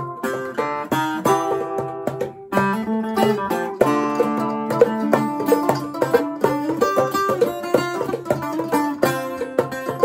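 Acoustic string jam: a mandolin and an archtop guitar picking quick plucked notes, with the ringing tones of a handpan struck by hand underneath.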